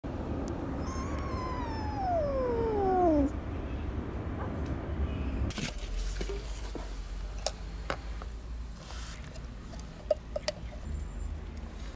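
A kitten gives one long meow, about two seconds, that falls steadily in pitch. After a break, a few sharp clicks and taps sound as food is spooned out of a tin can onto foam trays.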